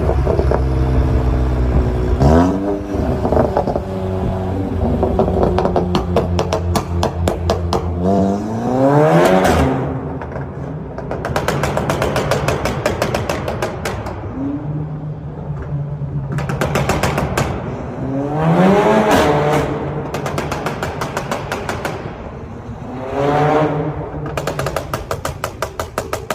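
Volkswagen Golf 7R's turbocharged 2.0-litre four-cylinder being revved several times, each rev rising quickly, with long runs of rapid crackling and popping from the exhaust between the revs.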